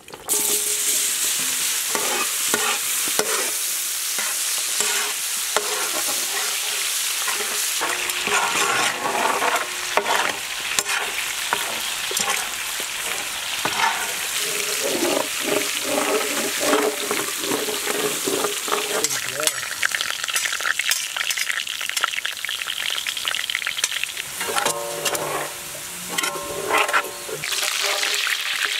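Crushed garlic frying in hot sesame oil in a large iron kadai, sizzling hardest just after it goes in and then sizzling steadily. A slotted metal ladle stirs through it, clicking and scraping against the pan.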